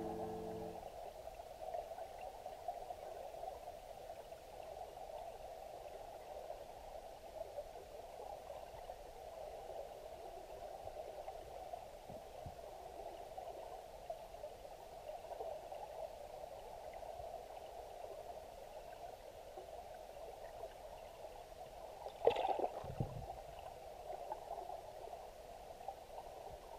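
Steady, muffled rush of river current heard from underwater over a stony bed, with one sharp knock about 22 seconds in.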